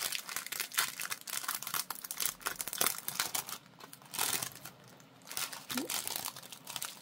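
A bag of small star-shaped sequins being handled: crinkling and rustling, with many quick little clicks as sequins spill out. It eases off for a moment about halfway through.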